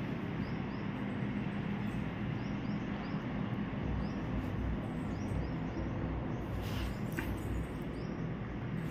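Steady background noise with a low hum, and faint short high chirps at irregular intervals of about a second.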